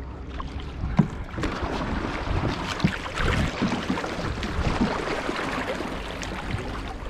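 Paddles dipping and splashing through lake water as several people paddle one boat, in an irregular run of wet strokes, with a single sharp knock about a second in. A low wind rumble on the microphone sits underneath.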